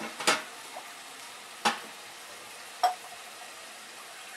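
Rice frying in hot vegetable ghee in an aluminium pot with a steady sizzle, stirred with a wooden spatula that knocks sharply against the pot three times.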